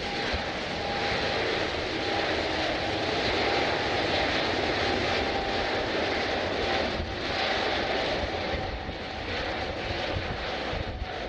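Jet airliner's engines going by close, a loud steady rush with a faint whine through it, easing off in the last few seconds.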